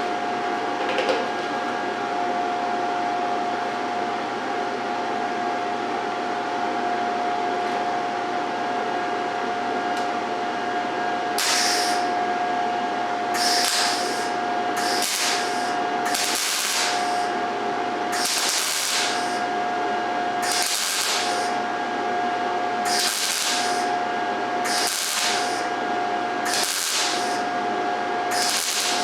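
A MIG welder, set to 16 volts and 90 wire speed on 16-gauge steel, laying short stitch welds. A steady hiss and hum run throughout, and from about eleven seconds in the arc crackles in short bursts, about one every one and a half to two seconds.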